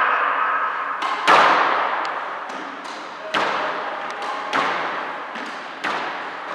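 Squash rally: the ball cracking off rackets and the court walls, a sharp hit every second or so, each followed by a long echo.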